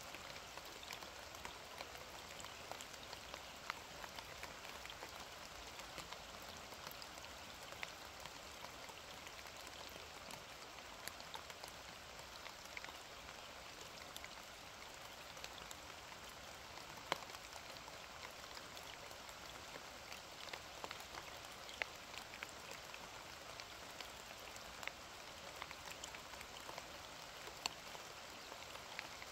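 Steady, soft rain: an even hiss with scattered sharp drop ticks and drips.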